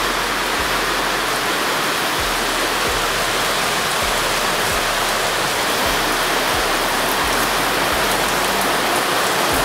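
Heavy rain falling steadily, a dense, even hiss.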